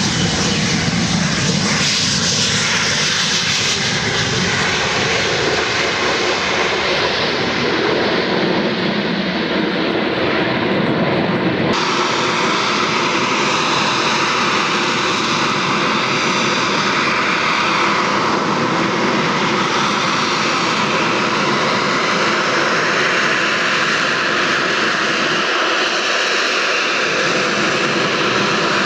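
Jet aircraft engine running loud and steady during a flying display, with a sudden change in its sound about twelve seconds in.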